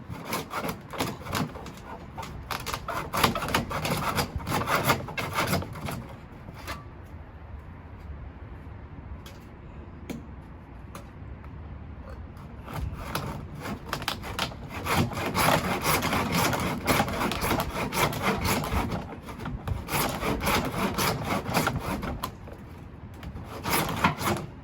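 Rapid back-and-forth rubbing strokes on wood, coming in bursts: about six seconds of it, a quieter stretch of about seven seconds, then a longer run and a short final burst.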